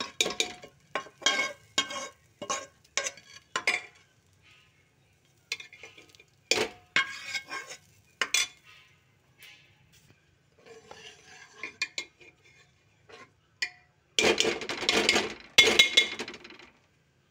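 Steel ladle stirring dal in a steel pot, clinking and scraping against the pot's side in quick strokes. The ghee, garlic and red-chilli tadka is being mixed into the lentils. The strokes come about two or three a second at first, then sparser, and there is a louder spell of fast scraping near the end.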